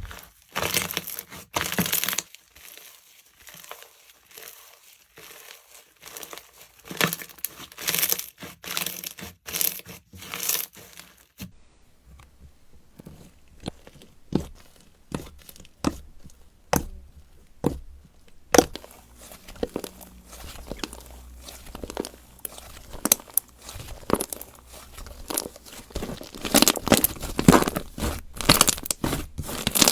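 Slimes being mixed together by hand, squished and stretched, giving a run of irregular sticky clicks and pops that ease off for a few seconds near the start and again in the middle.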